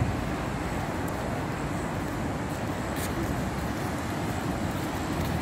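Steady noisy rumble of wind buffeting the phone's microphone, with the wash of surf breaking along the shore.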